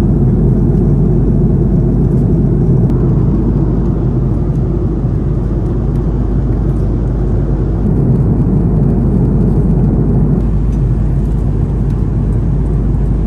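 Airbus A330-200 cabin noise in flight: a loud, steady, low rumble of engines and airflow that holds even throughout.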